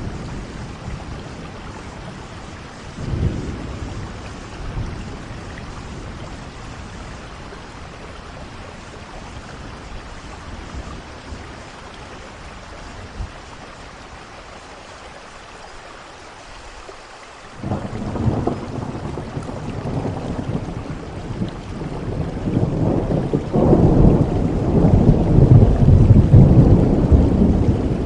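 Steady rain with thunder: a short rumble about three seconds in, then a long rolling peal that breaks in suddenly past the middle and grows loudest near the end.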